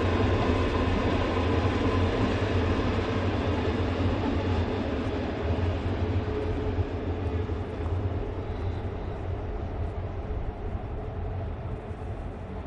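Narrow-gauge Rhaetian Railway train on the Bernina line running past: a steady rumble of wheels on rails with a faint whine over it in the first half, slowly getting quieter.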